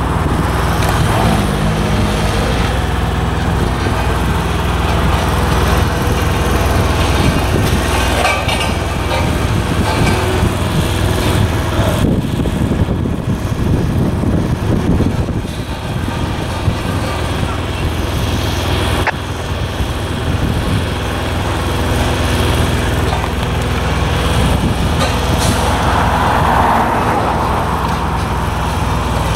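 Diesel engines of a tandem-drum asphalt roller and a dump truck running steadily, with a couple of sharp knocks.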